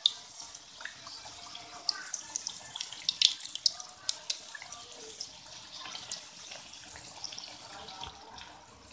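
Hot oil sizzling and crackling around kachoris deep-frying in a karahi, with a slotted metal spatula working in the oil. Sharp pops come thickest in the first half, over a steady hiss.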